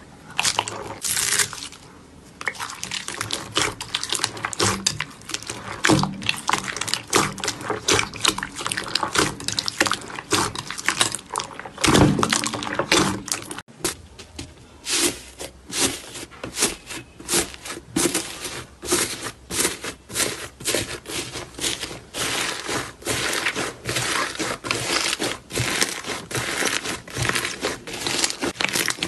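Hands squeezing and kneading slime mixed with small foam beads, giving a dense run of crackles and pops with wet squishing. It breaks off briefly about halfway through and resumes as a tray of pink bead-filled slime is pressed and kneaded.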